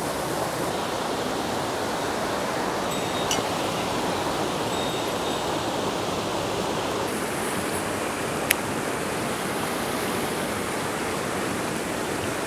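Rushing water of a mountain headwater stream, a steady rush throughout. A single sharp click cuts through about eight and a half seconds in, and a fainter one about three seconds in.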